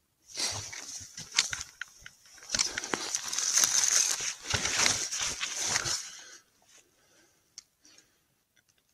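Handling noise from a rifle with a thermal scope being shifted about: rustling and scraping with many sharp clicks, picked up close by the scope's built-in microphone. It stops about six seconds in.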